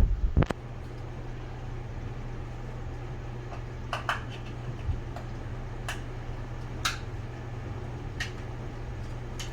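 A few heavy knocks at the start, then a steady low hum with scattered light clicks and taps.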